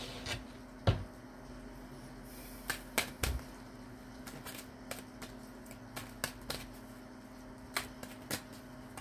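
Tarot cards being handled: a string of irregular light clicks and taps, the sharpest about one and three seconds in, over a faint steady hum.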